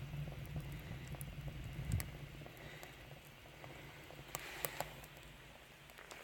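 Wood fire in a rocket stove's burn chamber crackling quietly, with scattered small pops over a low draft rumble that fades away in the second half.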